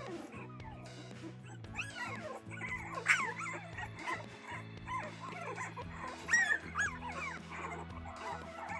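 Boston Terrier puppies whimpering and yipping in many short, squeaky cries that slide up and down in pitch, loudest about three and six seconds in, over soft background music.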